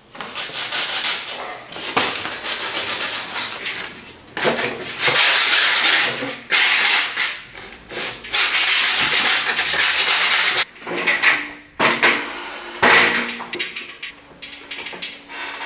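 Dried wall filler being sanded by hand: loud bursts of rough rubbing strokes against the wall, with short pauses between them.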